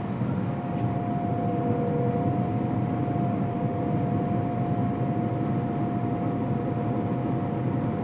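Combine harvester running in a corn field, heard from inside its cab: a steady machine drone with a steady high whine over it.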